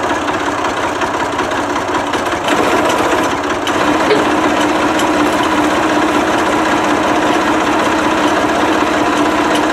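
Forklift engine running and revving up under load as the mast lifts a vehicle body. The engine grows louder about two and a half seconds in and again near four seconds, then holds steady and higher.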